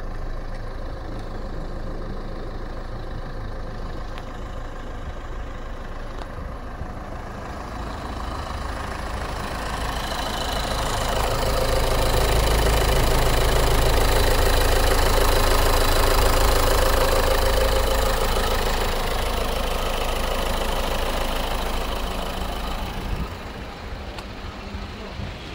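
Nissan Note's 1.5 dCi four-cylinder turbodiesel idling steadily, louder in the middle stretch where it is heard close over the open engine bay.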